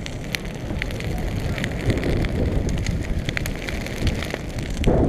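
Dry prairie grass burning in a prescribed-fire line, with irregular crackles and pops over a steady low rumble.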